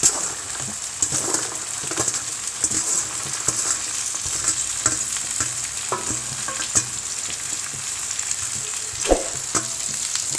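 Cut okra pieces sizzling as they fry in hot oil in a pan, with the scrape and tap of a spatula stirring them now and then; one sharper knock about nine seconds in.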